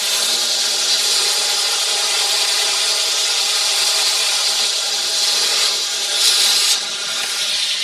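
A 2x72 belt sander's motor and belt running at speed with a steady hum, as a small metal tab is pressed against the moving abrasive belt to clean up its edge. There is a brief, louder grinding stretch a little after six seconds.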